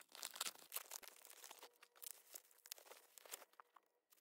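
Faint, irregular crinkling and crackling of plastic bubble wrap and clear plastic film being pulled and peeled off by hand, with a brief pause near the end.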